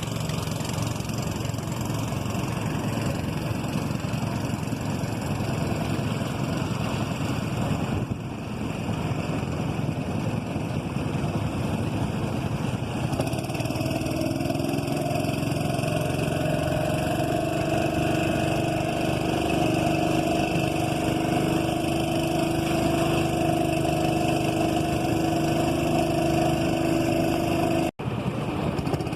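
Boat engine running steadily. About halfway through, a second, steady droning tone joins it; the sound cuts out for an instant near the end.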